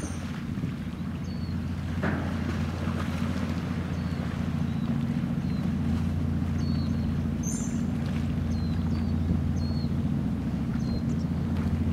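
Steady low drone of the destroyer escort Abukuma's engines as the ship passes. Short high chirps are scattered over it.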